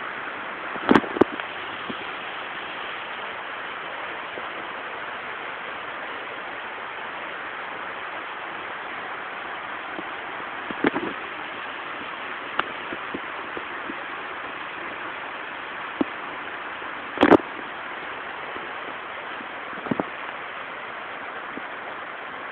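Steady hiss with a handful of short clicks and knocks scattered through it, the loudest about seventeen seconds in.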